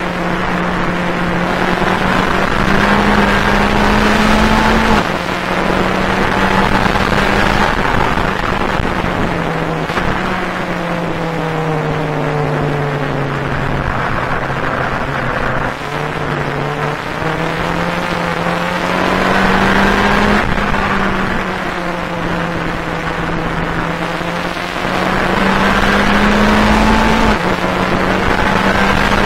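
Engine of a Volkswagen Beetle-bodied Fun Cup race car heard from inside the cockpit under hard acceleration, its note climbing and then dropping at each upshift several times. In the middle the revs sag lower through a corner before climbing again.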